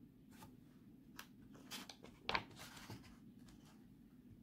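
Pages of a picture book being turned and handled: faint paper rustles and a few soft taps, the loudest a little past the middle.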